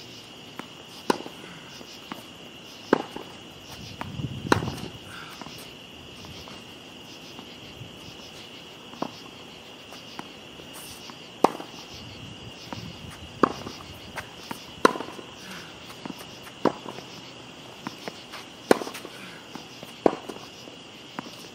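Tennis balls struck by Head racquets strung with Kirschbaum strings and bouncing on a hard court in a back-and-forth groundstroke rally: sharp pops every second or two, the loudest about four and a half seconds in. Under them runs a steady high chirring of night insects.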